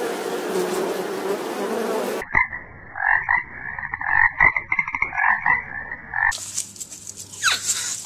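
A honeybee buzzing for about two seconds, then a frog croaking in a rapid run of pulses for about four seconds. Near the end comes a high hiss with a quick falling squeak.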